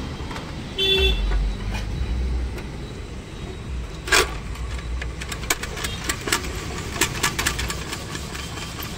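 Clicking and ticking of a hand-cranked spiral potato cutter as a skewered potato is turned through its blade, a quick run of clicks in the second half after a sharp knock. Under it, road traffic rumbles, with a short vehicle horn toot about a second in.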